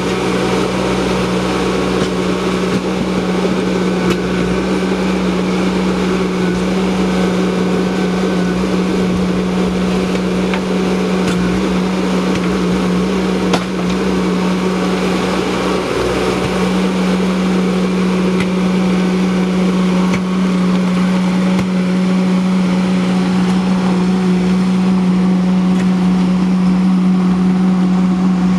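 Ditch Witch SK900 mini skid steer's engine running steadily at a constant pitch while the machine digs and moves rocky soil.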